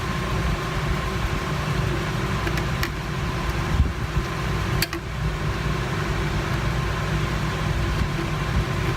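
Steady mechanical hum from a fan or air conditioner, with a couple of faint clicks about three and five seconds in.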